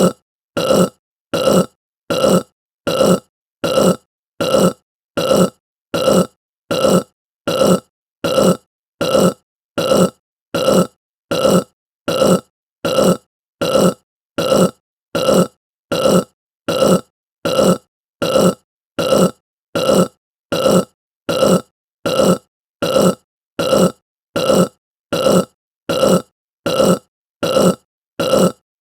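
A short human burp repeated over and over at an even pace, about five every four seconds, each one alike.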